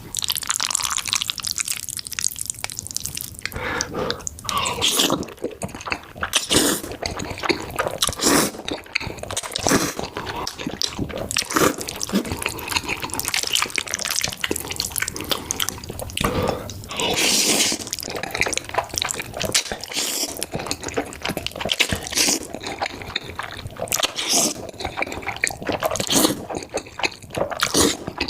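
Close-miked slurping and chewing of black bean noodles (jjajangmyeon): a dense, continuous run of mouth clicks, smacks and sucking sounds.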